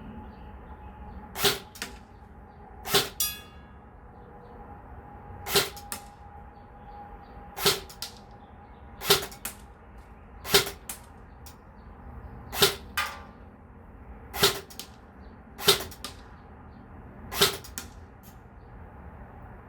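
Tippmann Air Raid AR6BB airsoft electric gun (AEG) fired in single shots, ten of them one every one and a half to two seconds. Each sharp shot is followed closely by a fainter tick, and twice by a short ringing.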